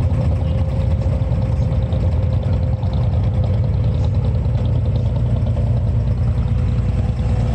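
Inboard diesel engine of a wooden abra water taxi running steadily underway, a deep, even drone with a faint constant hum above it.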